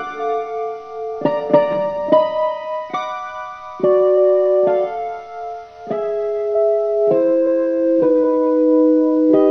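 Slow keyboard music: sustained piano-like notes and chords, struck about once a second, each ringing on until the next.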